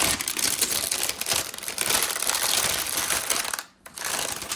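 Packaging being handled and opened, crinkling and rustling continuously, with a short break about three and a half seconds in.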